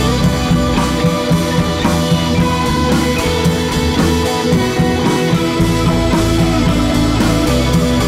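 Background rock music with electric guitar and drum kit, playing steadily.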